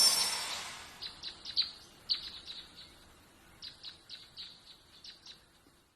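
A bright shimmering sound fades out over the first second, then small birds chirp: a scattered series of short, high, downward-sweeping chirps in little clusters that stop shortly before the end.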